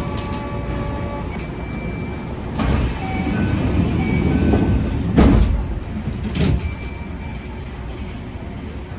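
Inside a Kintetsu commuter train's cab: a steady low rumble with a few loud thumps, the loudest about five seconds in, sharp clicks, and several short electronic beeps at different pitches.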